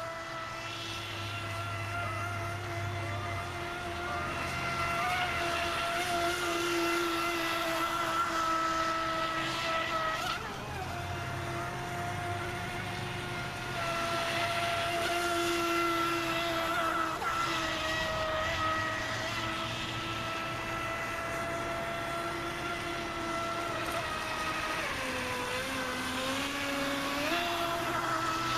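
Radio-controlled boat's brushless electric outboard running on the water: a steady high motor whine with a spray hiss that swells and fades as it passes. Near the end the whine drops lower for about two seconds as the throttle eases, then rises again.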